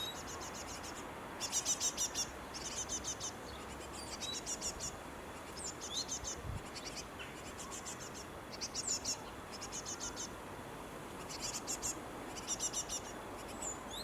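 Young birds chirping: short bouts of rapid high-pitched chirps repeating about once a second, with a few brief rising notes here and there.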